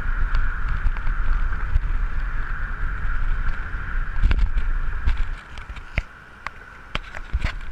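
Wind rumbling on the camera microphone during a fast downhill bicycle ride, with a steady whirring hum from the moving bike. About five seconds in the wind noise drops sharply, leaving scattered clicks and knocks.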